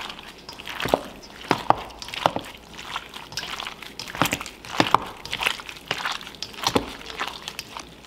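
A gloved hand squishing and mixing diced raw chicken in a wet marinade of egg white and corn starch in a stainless steel bowl. Irregular wet squelches with sharp clicks, about one to two strokes a second.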